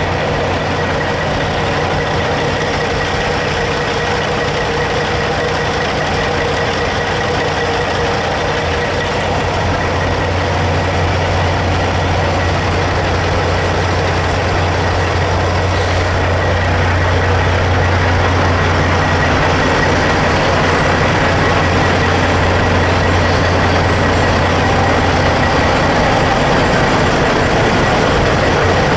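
Semi-truck diesel engines idling and running slowly while a tractor-trailer backs up: a steady low rumble that grows a little louder after the first third, with a faint steady high tone over it.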